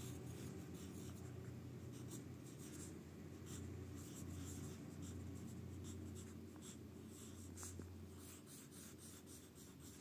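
Pencil lead scratching on paper in many short strokes as letters are handwritten, faint, over a low steady hum.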